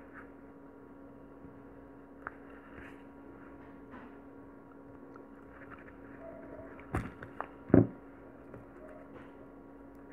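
Quiet handling noise from hand beadwork with needle and nylon thread over a steady low hum, with two sharp knocks about seven and eight seconds in.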